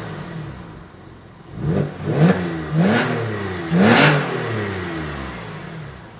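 Porsche 996 Carrera flat-six revved through an EVOX ValveTronic stainless steel exhaust: four sharp throttle blips, the last and loudest about four seconds in, each rising and then falling back toward idle.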